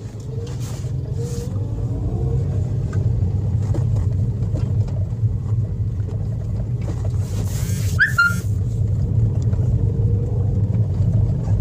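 Toyota Vios engine and road noise heard from inside the cabin while driving: a steady low rumble that builds over the first few seconds as the car gathers speed. A short high chirp sounds about eight seconds in.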